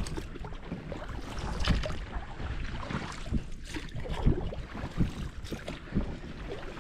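Inflatable boat being rowed: oars dipping and splashing with irregular knocks and swishes, no motor.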